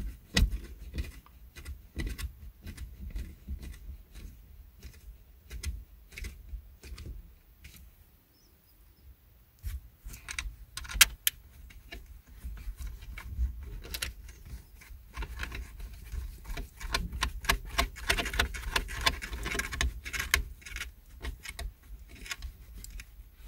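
Hard plastic headrest bracket being handled and adjusted on the metal headrest posts: a string of irregular clicks, taps and rattles, with a quieter pause about eight seconds in and the busiest clicking in the second half.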